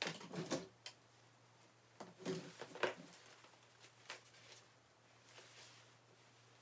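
Faint rustling of socks and their plastic wrapping being handled, in a few short spells with quiet room tone and a faint steady hum between.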